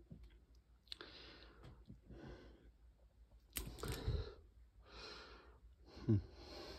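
Breathing close to the microphone: several soft breaths in a row, with a couple of brief handling clicks.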